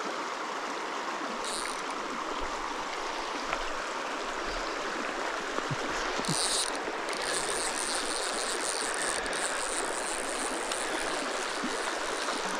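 Mountain river water rushing steadily over rocks.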